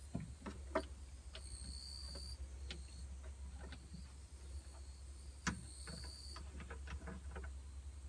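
Scattered light clicks and taps of a hand handling hoses and fittings in a Honda Acty's engine bay, over a steady low hum; the sharpest click comes about five and a half seconds in.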